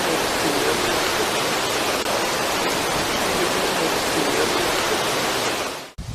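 Loud steady rushing hiss with no distinct events, which cuts off abruptly near the end.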